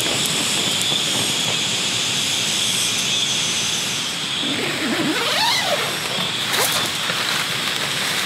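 Steady rushing hiss of water, with the rustle of tent fabric as the tent's side panels are handled and a short warbling call about halfway through.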